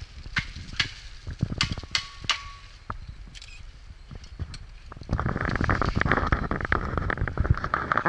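Crisp crackling and crunching of feet stepping in dry fallen leaves and twigs on a forest floor, as separate sharp crackles. About five seconds in it turns into a louder, continuous rustling and crackling.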